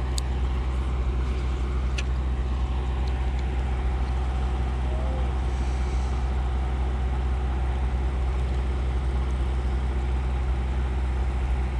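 A steady low hum of a running motor or engine, unchanging throughout, with a couple of faint clicks in the first two seconds.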